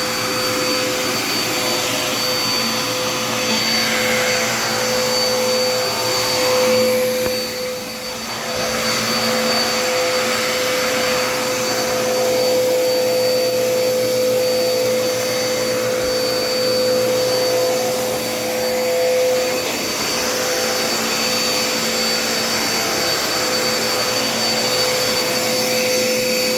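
Dirt Devil Endura Reach vacuum cleaner running steadily, a constant motor whine over the rush of air, with a brief dip in level about eight seconds in.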